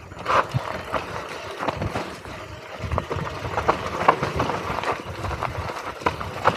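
Mountain bike rattling down a rough dirt trail: a steady rumble of tyres on dirt and rocks, broken by frequent sharp clacks from the chain and frame on the bumps.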